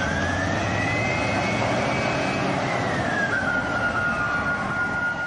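Jet-flyby-style sound effect: a steady rushing noise with a whine that rises over the first two seconds and falls back about three seconds in.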